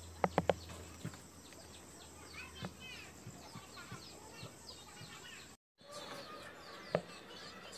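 Birds chirping steadily in the background, with three quick knocks about half a second in and another near the end from a spatula against a plastic mixing bowl while batter is stirred. The sound cuts out for a moment about two-thirds through.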